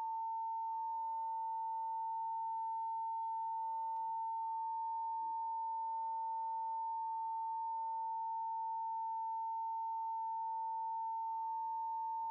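A long, steady censor-bleep tone: one unbroken beep at a single pitch, laid over and masking the speech.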